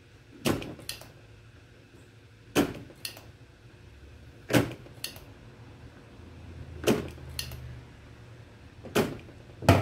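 Sharp clicks from desoldering work on a circuit board, often in pairs, every two seconds or so, as electrolytic capacitors are being removed from a TV power-supply board.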